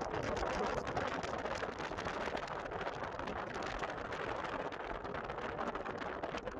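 Steady rushing noise of wind on the microphone and the sea washing along the hull of a bulk carrier under way, with a fine crackle throughout.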